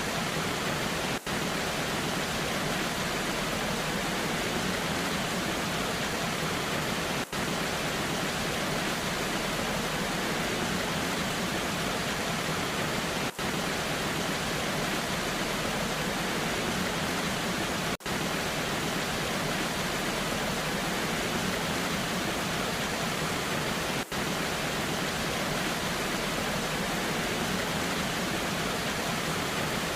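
Steady, even rush of a waterfall in the rain, with a brief dropout in the sound about every six seconds.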